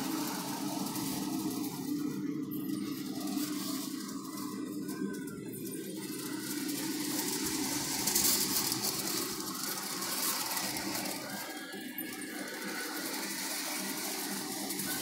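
Toy electric train running on its track: a steady motor hum with a noisy clatter over it, briefly louder about eight seconds in.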